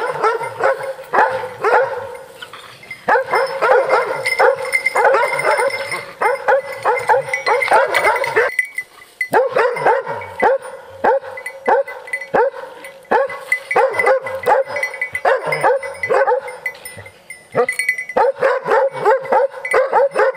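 Hunting dogs bay-barking at a cornered wild boar: rapid, repeated barks and yelps in runs of several seconds, with short pauses between.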